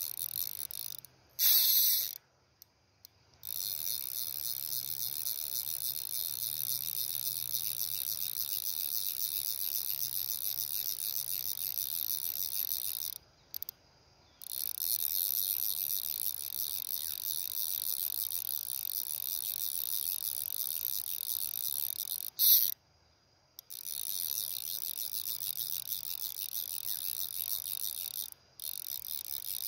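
High, dense insect chorus shrilling with a fast pulse. It cuts out abruptly three or four times for about a second, and briefly surges louder near the start and again about three-quarters of the way through.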